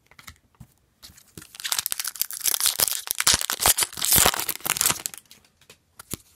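Foil wrapper of an Upper Deck hockey card pack being torn open and crinkled by hand, a dense crackling rustle from about a second and a half in until about five seconds in, then a few small clicks.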